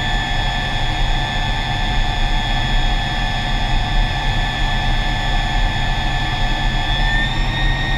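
U-2 Dragon Lady's jet engine heard from inside the cockpit: a steady, loud rush with a low rumble and a constant high whine.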